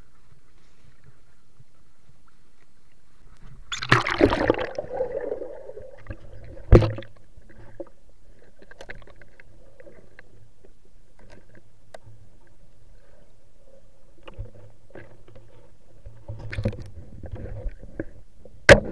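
Water rushing and bubbling as the camera goes under the river surface about four seconds in, then muffled underwater noise with a low hum and scattered sharp knocks, the loudest just before the end.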